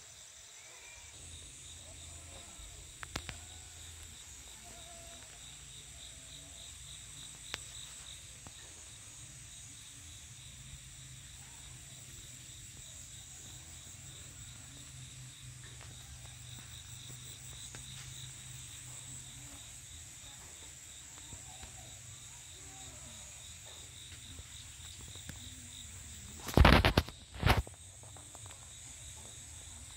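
Steady high-pitched insect chorus, a fine pulsing drone, running throughout. Two loud bumps come close together near the end.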